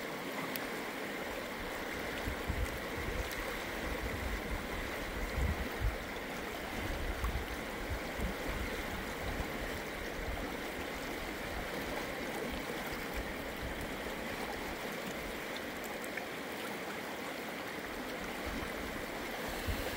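Shallow river water flowing over stones: a steady rush, with occasional low rumbles underneath.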